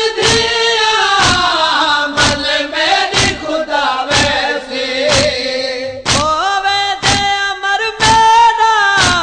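Male voices chanting a nauha, a Shia lament, to a steady thud of matam (chest-beating) about once a second.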